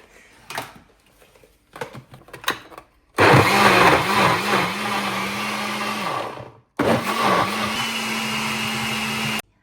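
Countertop blender blending a thick smoothie. After a few light knocks, the motor runs for about three seconds, its pitch dipping and recovering a few times as the blades catch the mix before it steadies. It stops briefly, then runs again for about two and a half seconds and cuts off.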